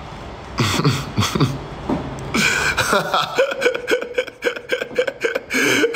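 A man laughing: a few short chuckles at first, then a longer run of quick, rhythmic laughter.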